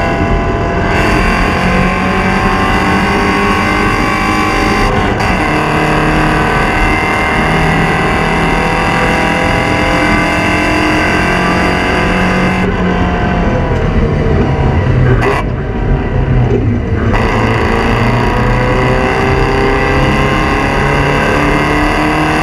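Porsche 944 Spec race car's four-cylinder engine at full race pace, revving up through the gears. There is a shift about five seconds in, and a lift off the throttle about two-thirds of the way through where the revs fall, before it pulls and climbs again.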